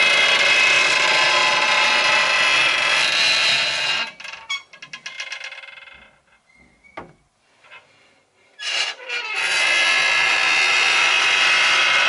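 A sticking wooden panel creaks and scrapes loudly as it is slid open. The creak breaks into a run of slowing clicks as it stops, and after a near-quiet pause with one sharp click the panel is slid back shut with another long, loud creaking scrape.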